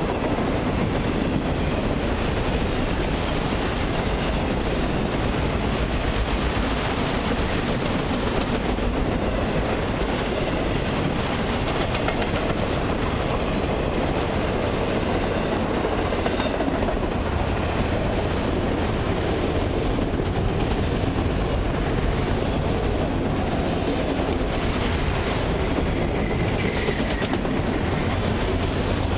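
Freight train of autorack cars rolling past close by: a steady rumble and clatter of steel wheels on the rails.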